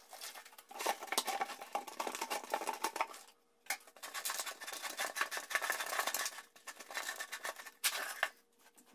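Handling noise: nitrile gloves being pulled on, then a rubber grout float scraping and scooping premixed Fusion Pro grout in a plastic pail. It comes in three scratchy bouts with short pauses between them.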